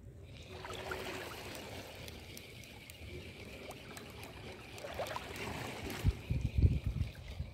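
Small waves lapping and trickling against the shoreline rocks, with a few low thumps near the end.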